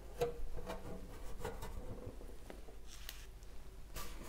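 Soft taps and rustling of hands handling a plastic mini greenhouse and its tray, a handful of light knocks with the firmest near the start.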